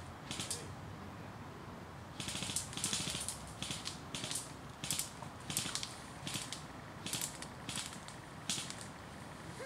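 Footsteps crunching through dry forest litter and undergrowth: short crackly steps about every half second, starting about two seconds in, with a single step near the start.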